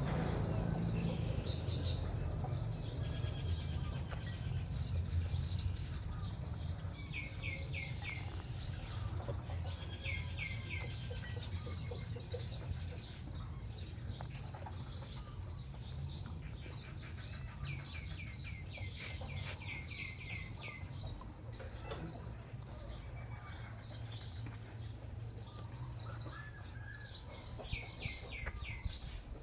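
Small birds chirping in short, quick runs of four or five high notes, repeated every few seconds, over a steady low rumble.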